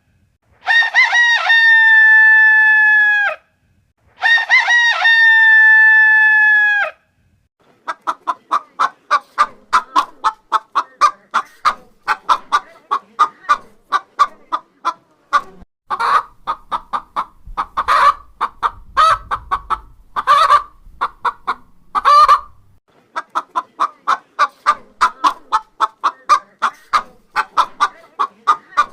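A rooster crows twice, each crow a long call of about three seconds. It is followed by steady rapid clucking from chickens, broken by a few louder squawks around the middle.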